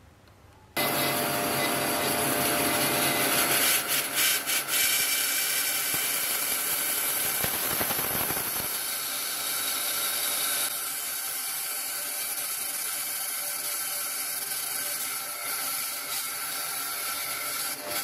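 A power saw starts abruptly about a second in and runs steadily, cutting a block of Queen Ebony, a very dense, hard wood.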